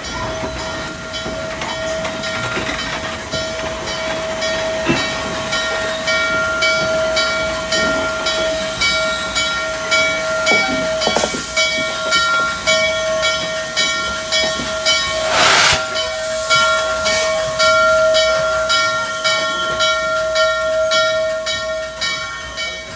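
Norfolk & Western J Class 611 steam locomotive rolling past: an even beat of exhaust chuffs over a constant high whine, with a loud burst of steam hiss about two-thirds of the way through.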